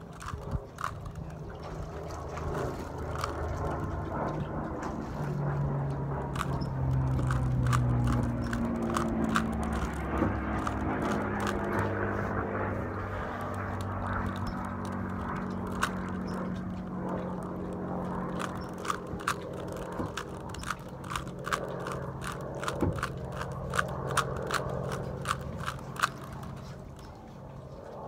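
Plastic 3x3 Rubik's cube being turned by hand: quick clicks and scrapes as the layers snap round, coming in runs. Under them runs a steady low hum whose pitch steps up and down several times in the first ten seconds.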